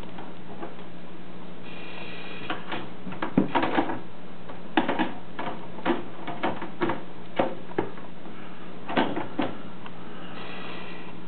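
Irregular light clicks and knocks, about a dozen, over a steady low hum.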